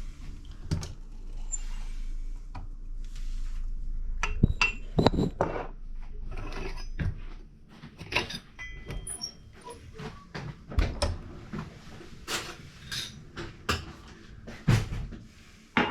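Clinks and knocks of cups and coffee gear being handled and set down: a long string of separate sharp taps, some louder knocks among them.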